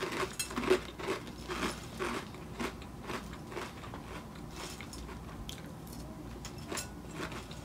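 Chewing a mouthful of dry, honey-flavoured corn cereal with marshmallows, no milk: a run of crisp crunches, about two or three a second, loudest in the first couple of seconds and softer after.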